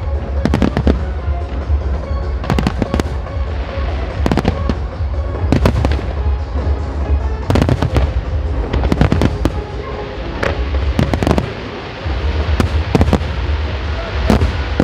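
Aerial firework shells bursting one after another: sharp reports in quick clusters of two or three, about every second or so, over a dense low rumble.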